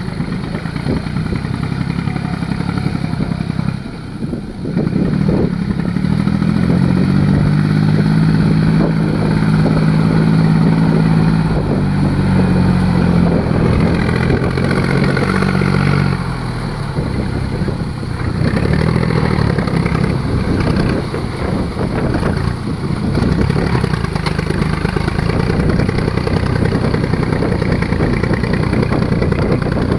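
Tractor engine running, rising in pitch and loudness from about 6 seconds in and holding there until about 16 seconds in, then settling back to a lower, steady speed.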